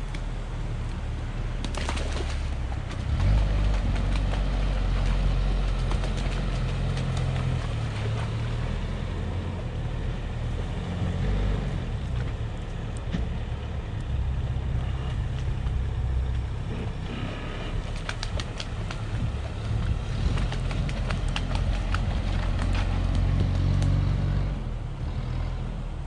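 Sherp amphibious ATV's diesel engine running under load as it drives through a snowy ditch and turns around. It gets louder about three seconds in and eases off near the end, with scattered sharp cracks and clicks.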